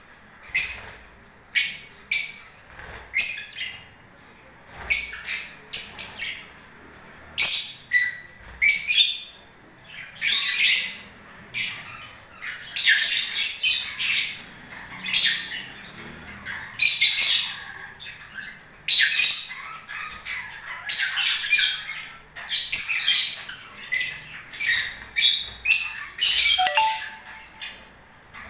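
Lovebirds squawking and chirping: shrill, sharp calls in quick series, one after another about every second.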